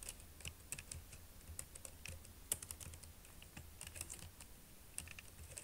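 Computer keyboard typing: quiet keystrokes clicking in an irregular run.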